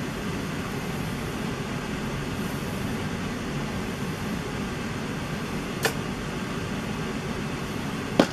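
Room air conditioner running, a steady low rushing noise. Two short sharp clicks cut through it, one about six seconds in and a louder one near the end.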